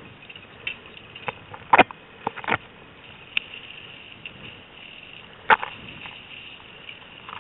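Short, sharp splashes of a hooked Atlantic salmon thrashing at the river's surface: a few about two seconds in and the loudest about five and a half seconds in, over a steady background hiss.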